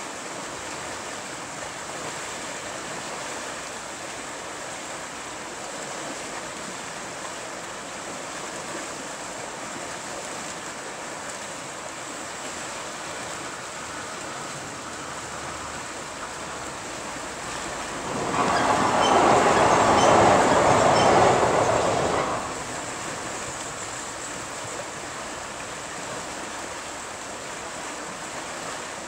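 Steady rushing of white water over a river rapid. About 18 seconds in, a much louder rushing noise swells for around four seconds, then drops back.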